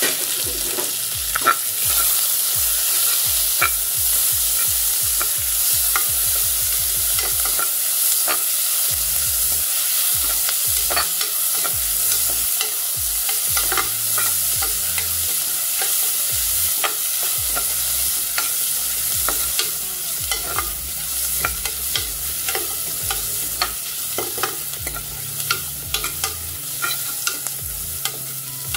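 Sliced onions sizzling as they fry in ghee in a pressure cooker, stirred with a spatula that clicks and scrapes against the metal base over a steady frying hiss; the onions are being sautéed until soft.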